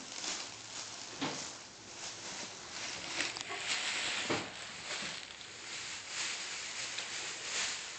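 Plastic shopping bags rustling and crinkling as a toddler rummages through them, with a couple of soft knocks about a second in and again a little past the middle.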